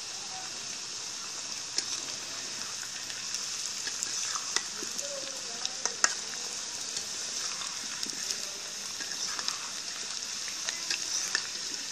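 Potato chunks frying in hot oil in an iron kadai: a steady sizzle, with a metal spatula scraping and clicking against the pan every so often as they are stirred.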